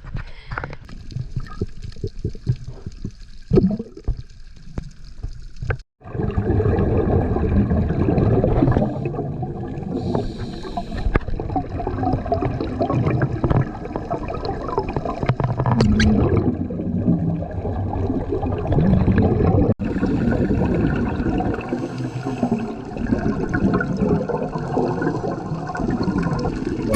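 Water splashing and sloshing around a GoPro at the surface, then, after a cut about six seconds in, steady underwater bubbling and gurgling in uneven surges, the sound of a scuba diver's exhaled regulator bubbles.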